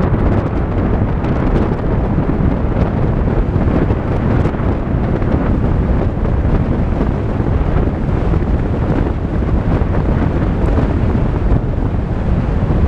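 Steady low rumble of a Volkswagen Tiguan driving on a dirt road: tyre and road noise mixed with wind buffeting the microphone.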